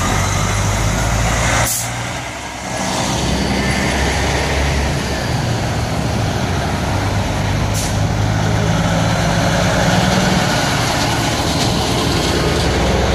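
Heavy diesel trucks, Kenworth conventionals among them, driving past one after another with their engines running loud and steady. An engine note rises a little past the middle as one pulls away. Two brief sharp sounds come about six seconds apart.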